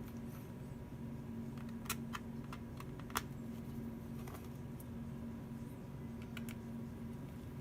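A few sharp, light clicks and taps, spaced irregularly, the loudest about three seconds in, from handling a laptop during a repair, over a steady low hum.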